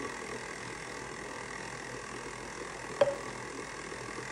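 A single sharp clink against the stand mixer's stainless steel bowl about three seconds in, ringing briefly, over a steady background hum.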